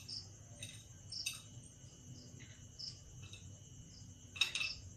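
Melted butter with a bay leaf sizzling faintly in a nonstick frying pan, with scattered small pops and a sharper click about four and a half seconds in. A faint steady high whine runs underneath.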